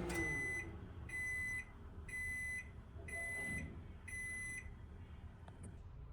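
A kitchen appliance finishing its cycle: a motor hum winds down, then an electronic beeper sounds five times, evenly spaced about a second apart, each beep about half a second long.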